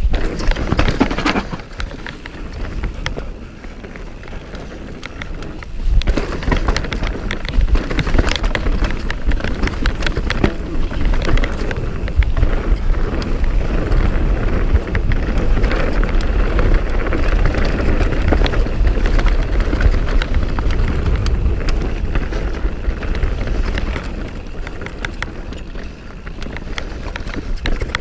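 Mountain bike descending a dirt trail at speed: tyres rolling over dirt and roots with the chain and frame rattling and clattering over bumps, and wind rumbling on the camera microphone. It eases off for a few seconds early on and again near the end, then picks back up.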